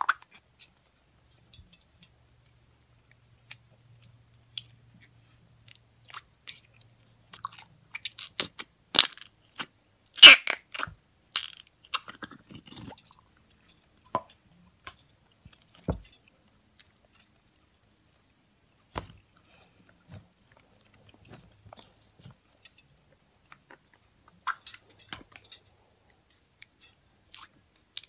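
Slime being squeezed and kneaded by hand: irregular wet squishes and crackling pops, densest and loudest about a third of the way in, sparser afterwards.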